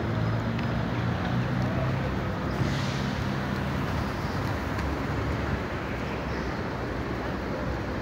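Steady low rumble of city traffic, with wind buffeting the microphone.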